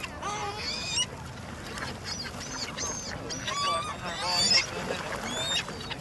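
A flock of gulls calling, many short, overlapping squawks in quick bursts, loudest about four and a half seconds in.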